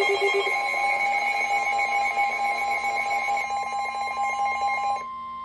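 Weather-radio emergency alert: a steady warning tone with a rapid, pulsing electronic alarm beeping over it. The pulsing alarm cuts off about five seconds in, leaving the steady tone alone.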